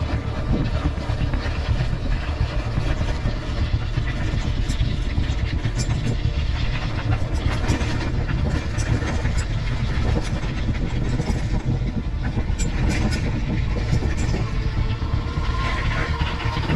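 Firefox Fusion 26 mountain bike rolling fast downhill over loose gravel and stones: a steady low rumble with many small crunches and rattles from the tyres and bike.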